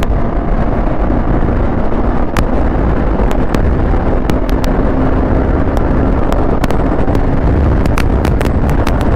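Wind blast buffeting the microphone on a single-cylinder KTM Duke 390 motorcycle accelerating at highway speed, a loud, dense rumble with the engine underneath and scattered sharp crackles.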